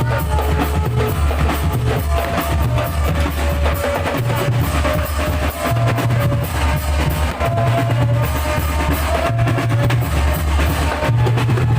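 Loud music with a dense drum beat and a deep bass line that changes note about once a second, with a few held melodic tones above.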